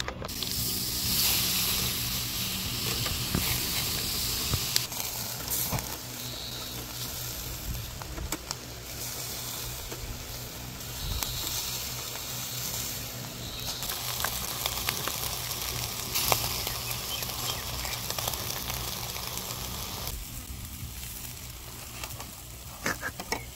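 Pork sizzling as it cooks, a steady hiss scattered with small pops and crackles.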